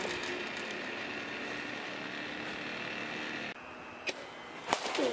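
A steady outdoor hum for about three and a half seconds, then a faint click and, near the end, one sharp crack of a wooden bat hitting a machine-pitched baseball.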